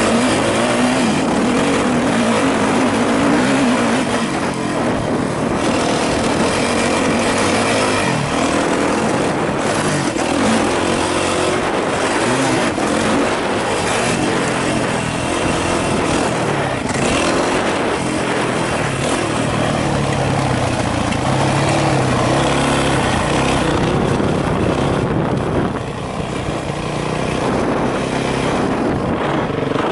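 Yamaha YZ450F motocross bike's single-cylinder four-stroke engine running under load, revving up and down with the throttle, mixed with wind noise; it briefly eases off near the end.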